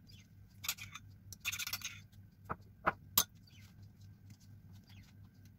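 A knife or spatula spreading a filling over a sheet of roll-cake sponge: a few short scrapes, then three sharp clicks about halfway through as the blade knocks on the surface.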